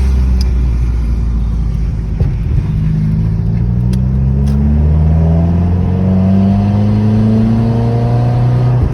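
2016 Subaru WRX's turbocharged flat-four engine pulling under acceleration, heard from inside the cabin with the driver's window open. It drones steadily for about two seconds, breaks off briefly, then climbs slowly and steadily in pitch for the rest of the time.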